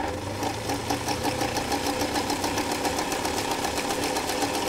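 Elna Supermatic sewing machine running at a steady speed, stitching a straight stitch through thick 6 to 8 ounce cowhide: a motor hum under a rapid, even ticking of the needle bar and hook.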